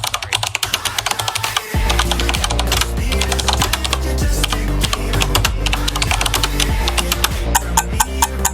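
A fast, continuous run of sharp clicks, with music carrying a heavy bass line coming in just under two seconds in and running under the clicks.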